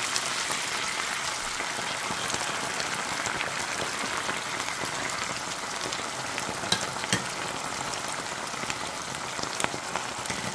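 Kidneys, onion and garlic sizzling in hot oil in a pan: a steady frying hiss with a few sharp clicks about two thirds of the way through and near the end.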